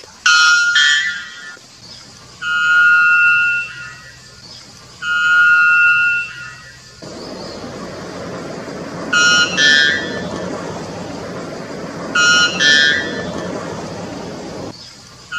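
White bellbird calling: loud, horn-like notes repeated every few seconds, some held steady on one pitch for about a second and a half, others given as short paired notes. A steady rushing noise lies under the calls through the middle stretch.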